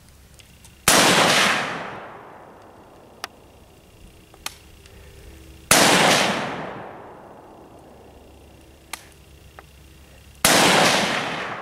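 Three rifle shots fired from the prone position, spaced about five seconds apart, each a sharp crack followed by an echo that dies away over a second or two.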